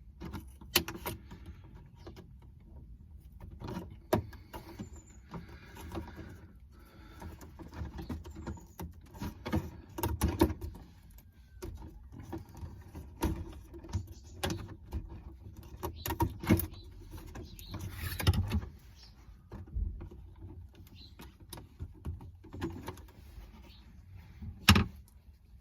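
Irregular clicks, scrapes and rustles of hands at work: cardboard being cut to make a slot for a camera cable, and the cardboard and insulation tape being handled.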